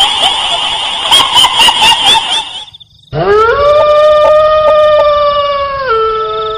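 A noisy, crackling sound with a constant high tone cuts off about two and a half seconds in; after a short gap a long howl rises in pitch, holds steady and drops a step near the end.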